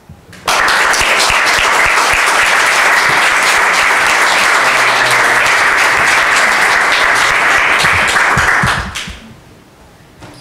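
Audience applauding, starting suddenly about half a second in and dying away about a second before the end.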